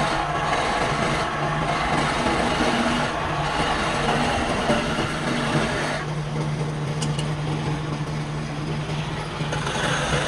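Wood lathe running with a steady motor hum, and a rough scraping noise of work on the spinning wood that thins out about six seconds in.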